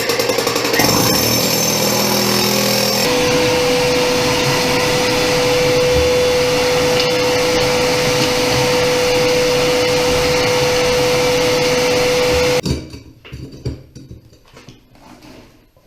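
Shop vac motor switched on, whining up to speed over about three seconds and then running steadily with a high whine, presumably sucking up broken concrete and rock around the floor drain. It is switched off near the end.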